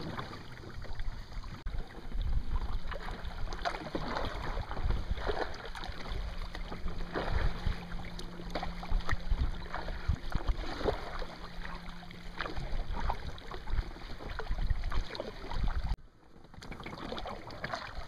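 Kayak paddling: paddle blades dipping and water splashing and dripping in an uneven run of small splashes, over a low rumble of wind on the microphone. A faint steady hum runs through the middle.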